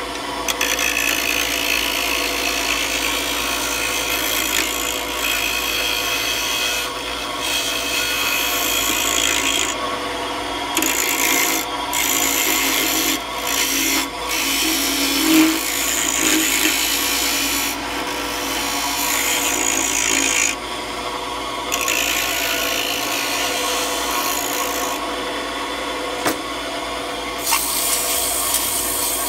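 Wood-turning lathe spinning a small wooden spinning-wheel bobbin while a skew chisel cuts it: a steady hum from the lathe under a scraping hiss from the tool, which stops briefly several times as the chisel is lifted. Near the end the hiss becomes steady rubbing as an abrasive pad is held to the spinning wood.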